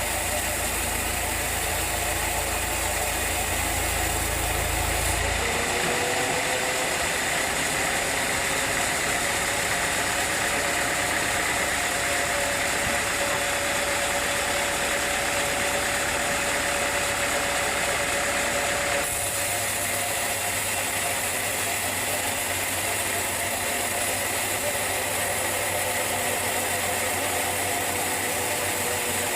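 Sawmill machinery running steadily with a constant mechanical hum; its tone changes abruptly about five seconds in and again at around nineteen seconds.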